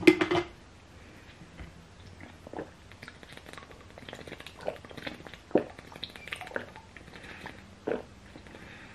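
Someone drinking from a plastic water bottle: about five short gulps and swallows, a second or two apart.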